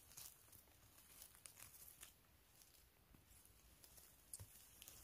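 Near silence, with faint scattered rustles and small ticks.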